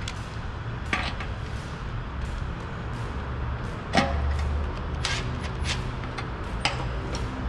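Screwdriver and screws clicking and knocking against the metal fuel pump plate on a scooter fuel tank as the plate is screwed down, with sharp clicks about a second in, a louder knock about four seconds in, and several more near the end, over a steady low hum.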